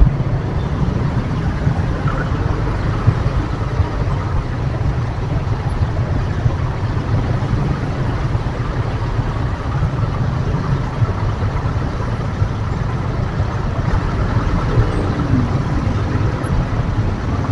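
Road traffic in a stop-and-go jam of motorcycles and a bus: a steady low engine rumble with an even haze of traffic noise, heard from a scooter moving at walking pace.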